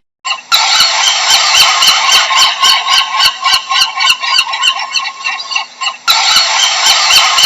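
A pelican colony calling: many overlapping harsh calls at once, with a brief dip about six seconds in before the calling starts again.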